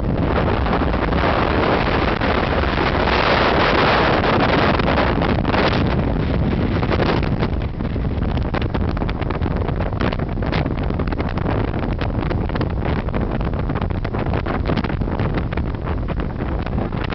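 Wind rushing and buffeting over the microphone of a camera held outside a car moving at highway speed, with the car's road noise beneath. Loudest in the first few seconds, then a steadier rush with rapid gusting.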